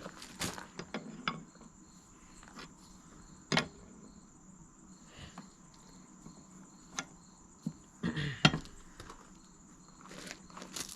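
Scattered clicks and light metal knocks of hydraulic fittings and hand tools being handled, the sharpest about three and a half seconds in and a short cluster near the end, over the steady, evenly repeating chirp of insects.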